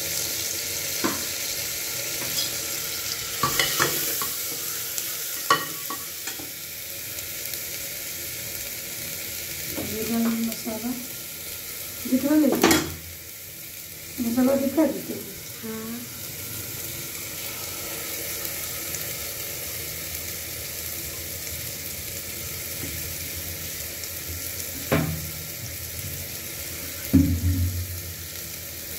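Tomatoes and ground spices sizzling steadily in hot oil in a steel-lined pot, with a ladle stirring and clinking against the pot now and then. In the middle a steel bowl scrapes and knocks on the pot's rim as a ground peanut-and-mustard paste is scraped in, and near the end the thick paste drops in with a dull thud.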